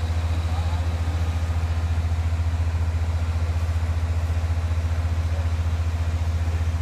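An engine idling steadily with a low, even throb.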